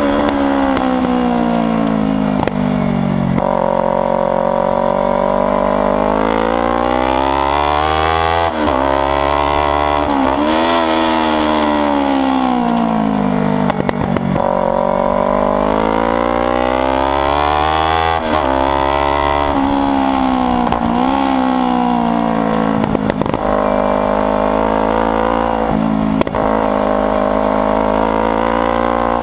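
Kawasaki Ninja 300 parallel-twin engine running loud under hard riding. Its pitch climbs on acceleration and drops back sharply several times.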